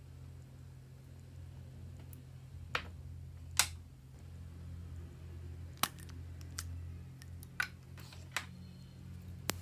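About seven sharp clicks and taps at irregular intervals, as small hard objects are handled and set down, over a steady low electrical hum.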